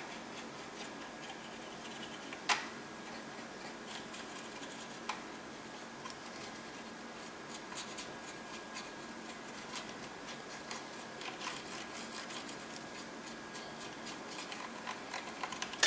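Faint scratching and light ticking of a paintbrush working oil paint over a model's surface, with a sharp click about two and a half seconds in.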